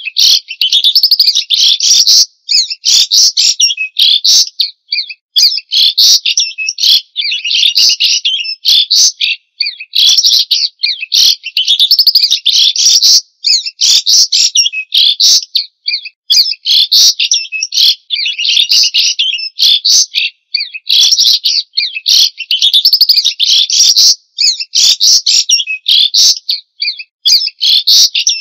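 White-rumped shama (murai batu) singing: a loud, rapid, high-pitched run of varied chirps, whistles and trills, in phrases of one to two seconds with brief breaks between them.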